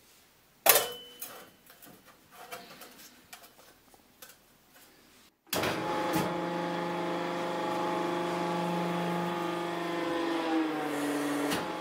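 A sharp metal clank and a few light clicks as steel parts are set on the bed of a homemade hydraulic press, then the press's hydraulic pump motor starts and runs with a steady hum, its pitch dropping slightly near the end.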